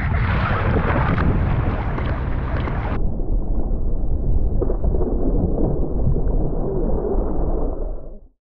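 Shallow sea water sloshing and splashing right at the microphone, with heavy low rumbling from water and wind buffeting the mic. About three seconds in, the sound suddenly turns muffled, and it fades out near the end.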